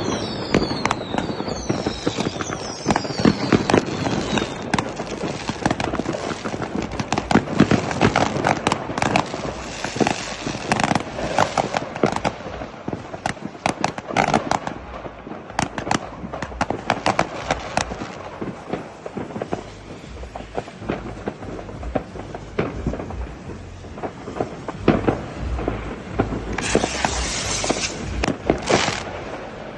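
Fireworks rockets bursting in quick succession with many bangs and crackles. Several whistling rockets fall in pitch in the first few seconds, and there is a bright hissing, crackling stretch near the end.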